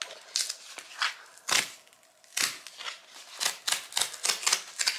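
Perforated tear strip being ripped off a cardboard mailer in a series of short, sharp rips that come faster in the second half.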